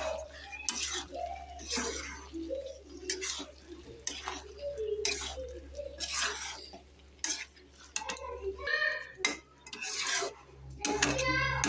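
A metal spatula scraping and stirring chunks of potato, taro and vegetable stems around a metal kadai to coat them in masala, in repeated strokes about once a second.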